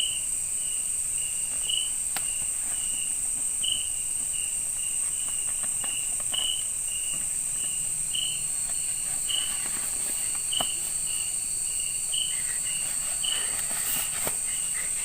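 Night insects in tropical forest: a steady high-pitched insect drone with a short chirp repeating about every half second. A few faint rustles and clicks of handling come through here and there.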